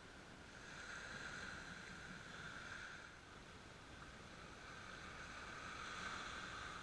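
Small waves breaking and washing up a pebble beach, faint, swelling twice and falling back in between.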